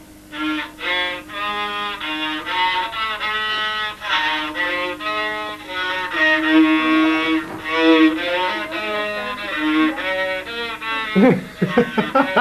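Violin played with the bow: a melody of changing notes over a held lower note, with a few sliding notes near the end.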